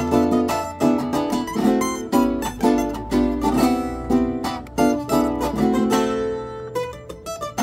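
Mandolin playing a fast plucked melody over a strummed Venezuelan cuatro accompaniment. About six seconds in, a note is left to ring and fade before the next phrase starts.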